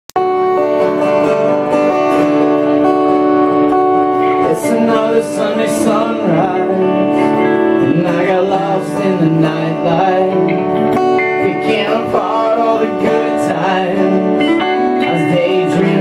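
Live band playing the opening of a song on electric and acoustic guitars, bass guitar and drum kit. Cymbal hits come in about four and a half seconds in.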